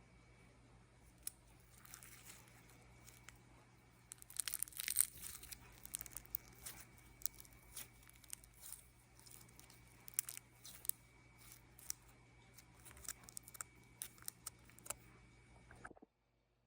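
Crinkling and tearing: a brief rustle, then a long irregular run of sharp crackles, loudest about four to five seconds in, over a steady low electrical hum. It all cuts off abruptly near the end.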